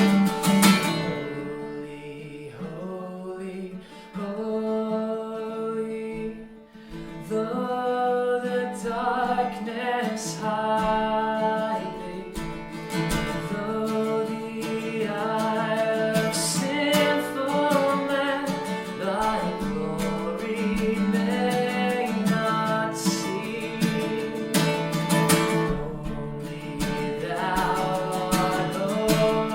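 Music: a strummed acoustic guitar playing chords under a sung melody.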